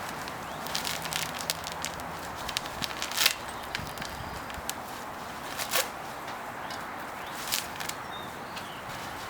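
Metal hammock-stand parts being handled and fitted together by hand: a few scattered sharp clicks and clinks, the strongest about three seconds in and again near six seconds, over steady background hiss.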